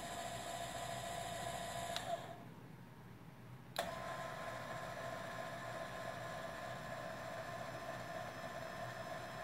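Electric actuator of a Kolpin DirtWorks Category 0 3-point hitch running with a steady whine, shutting off with a click about two seconds in, then clicking back on under two seconds later and running on.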